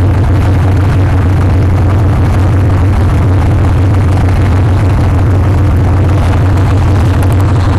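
T-54/55-type tank's V-12 diesel engine running with a steady, loud low drone as the tank drives by on its tracks.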